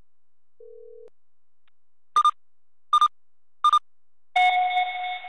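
Electronic alert sounds from a live seismograph monitor's sound-alert system. A brief faint low tone is followed by three short high beeps about three quarters of a second apart, then a louder two-note chime that starts near the end and rings on.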